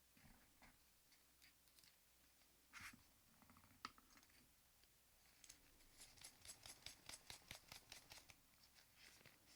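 Faint clicks and taps of small plastic pen parts being handled and fitted together. The second half has a quick, even run of about five ticks a second.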